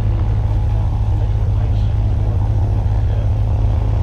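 A steady, loud low engine drone that does not change in pitch or level.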